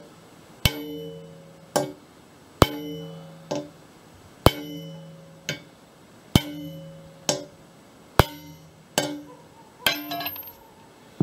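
A hammer striking a steel 19 mm socket set over a centreboard pivot pin, about a dozen blows roughly a second apart, each ringing briefly with a metallic tone. The pin is moving under the blows, and a quick run of clinks comes near the end.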